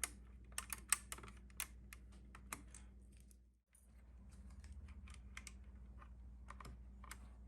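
Sharp plastic clicks and taps of keycaps being pulled off a mechanical keyboard's Cherry MX Brown switches with a keycap puller and pressed back on. A quick run of clicks comes in the first three seconds, then a few more near the end.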